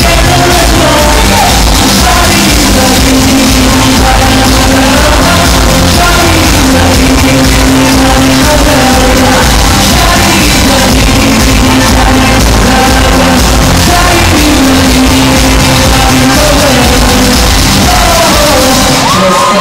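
Loud pop song sung live over a backing track with a steady beat, the singer holding long notes; the music cuts off at the very end.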